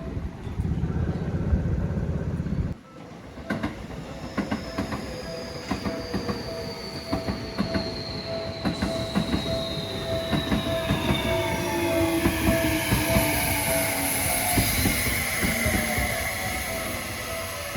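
Japanese level-crossing alarm dinging steadily while an electric commuter train passes close by, its wheels clicking over the rail joints. A whine from the train's motors falls steadily in pitch over several seconds.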